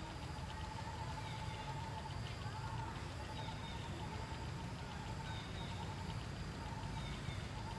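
Outdoor forest ambience: a steady high buzz with scattered short chirps over a low background rumble.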